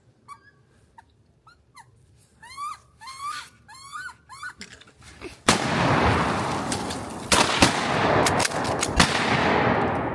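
A run of short, rising, squealing wood duck calls, then a sudden loud shotgun blast about halfway through. Several more sharp shots follow close together over a loud rushing noise that runs on to the end.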